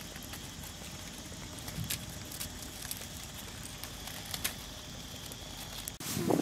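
Quiet forest ambience: a steady faint hiss with a few scattered light clicks and a thin, steady high tone.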